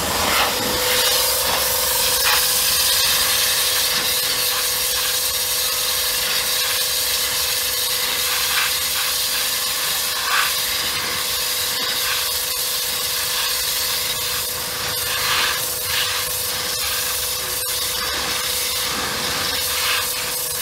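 Pressure washer running, its jet spraying a motorcycle's chain and rear wheel to wash off the grime after a petrol clean. It makes a loud, steady hiss of spraying water with a steady hum underneath.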